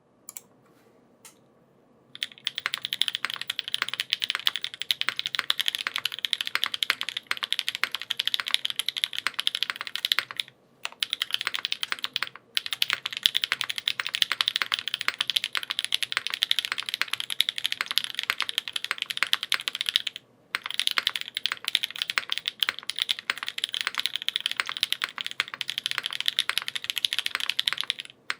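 Fast continuous typing on a custom mechanical keyboard with lubed Gateron Pure Berry linear switches, an aluminium plate and KKB keycaps: dense, clacky keystrokes. It begins with a few single key presses, then runs as steady typing broken by brief pauses.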